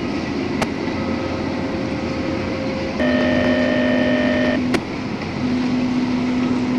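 Diesel freight locomotive running steadily as its train rolls past, with a few sharp clicks. About three seconds in a steady tone joins it for about a second and a half, and its lowest note comes back near the end.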